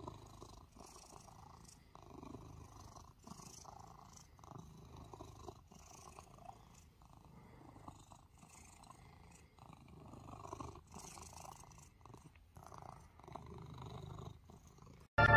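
Domestic cat purring while being scratched under the chin: a soft, steady rumble that swells and fades with each breath.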